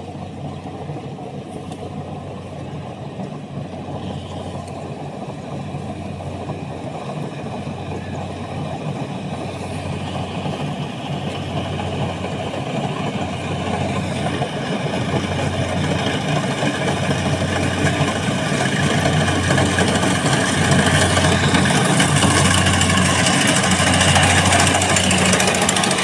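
Kubota DC-70 rice combine harvester running under load as it cuts and threshes: a steady diesel engine hum with threshing and mechanical noise, growing steadily louder as the machine comes right up close.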